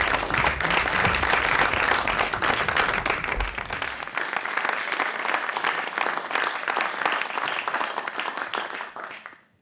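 Audience applauding, a dense patter of many hands clapping, fading out shortly before the end.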